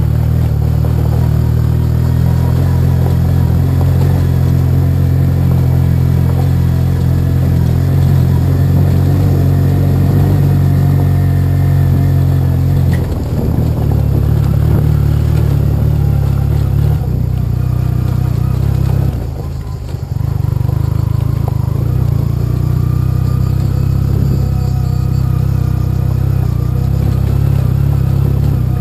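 Yamaha TDM 850 parallel-twin motorcycle engine running steadily at low speed. About two-thirds of the way through the throttle eases off briefly, then picks up again.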